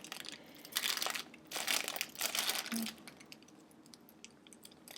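Small plastic bag crinkling as it is handled, in two bursts in the first three seconds, then only faint rustling.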